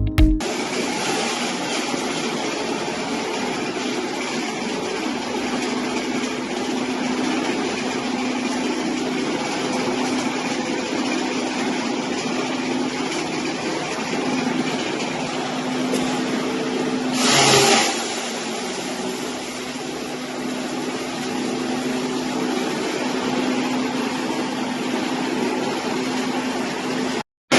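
Electric hammer mill for paddy straw, driven by a 5 HP three-phase motor, running steadily with a constant hum, with a brief louder rush about seventeen seconds in.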